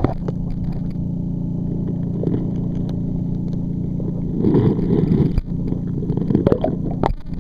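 Muffled underwater sound picked up by a waterproof camera held below the surface: a steady low hum, a louder rushing swirl of water about four and a half seconds in lasting about a second, and a few sharp knocks near the end.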